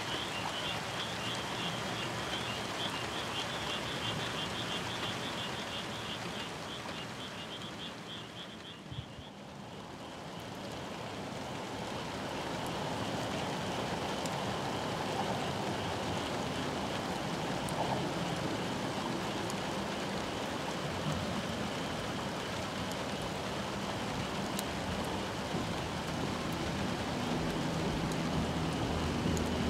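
Outdoor night ambience: a chorus of calling frogs, a rapid high-pitched pulsing that is strongest in the first nine seconds, over a steady rushing noise that dips about nine seconds in and then swells again.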